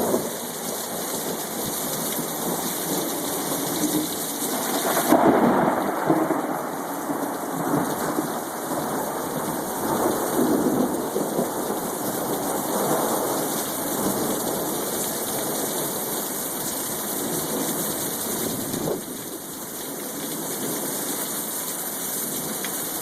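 Thunderstorm: steady heavy rain with thunder rumbling, loudest about five seconds in and swelling again around ten to thirteen seconds.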